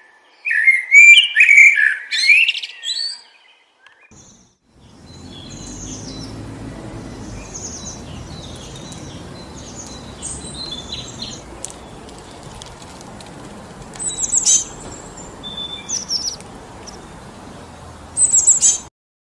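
Wild birds singing: a loud burst of song for the first few seconds. After a short gap comes a steady rush of wind through forest trees, with scattered high chirps and louder calls about two-thirds through and again near the end. The sound cuts off abruptly just before the end.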